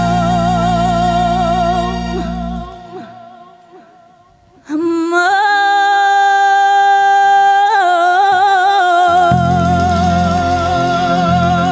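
A female singer holds long notes with vibrato over low accompaniment. Around three seconds in the accompaniment drops away and the music nearly fades. About five seconds in she comes back on a strong, steady sustained note that opens into vibrato, and the accompaniment returns near the end.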